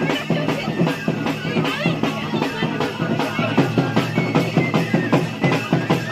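Dance music with a fast, steady drum beat, about four beats a second.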